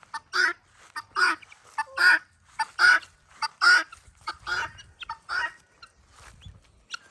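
Guinea fowl calling: seven loud, harsh calls evenly spaced about a second apart, stopping after about five and a half seconds.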